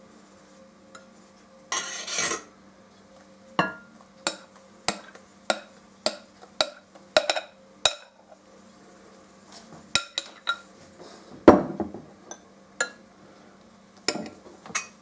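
A metal spoon clinks and scrapes against a glass bowl while a thick sour-cream batter is spooned out over syrniki in a glass baking dish. There is a short scraping rush about two seconds in, then a run of sharp clinks about every half second. A heavier knock of glassware comes about two-thirds of the way through, followed by a few more clinks.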